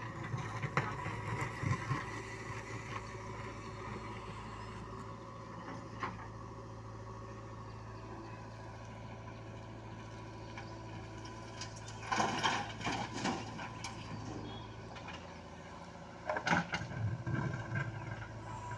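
JCB 3DX backhoe loader's diesel engine running steadily while it digs, with bursts of clattering and scraping as the bucket works the stony soil: a second or two in, about twelve seconds in, and again near the end.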